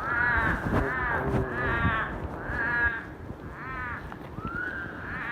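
A series of about six short, arched screeching animal cries, roughly one a second. They sound like bleating sheep and come from unseen animals in dense woods.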